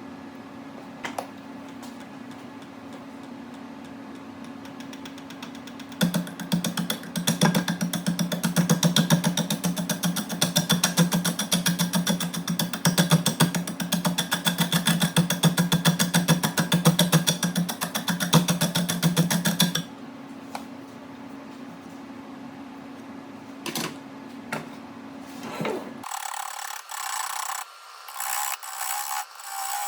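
Wood lathe running with a turning tool cutting a spinning segmented walnut bowl. A steady motor hum runs throughout, and from about six to twenty seconds in the cut becomes a loud, rapid chattering as the tool strikes the glued segments. Near the end the low hum stops and the sound turns to thinner, irregular scraping.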